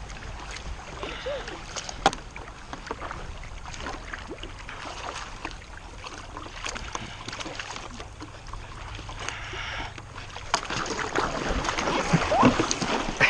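Paddle strokes dipping and splashing in lake water, with drips and small irregular knocks, the splashing growing louder and busier near the end.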